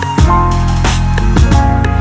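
Background music with a steady drum beat, deep bass and held synth notes.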